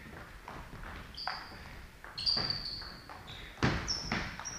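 Table tennis rally: the ball clicking off the bats and bouncing on the table, a quick series of sharp strikes, each with a short high ping.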